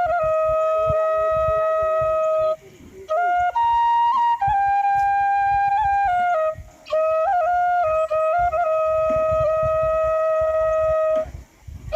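Flute playing a slow melody of long held notes, each stepping to a new pitch, with short pauses about three seconds in, about seven seconds in and near the end.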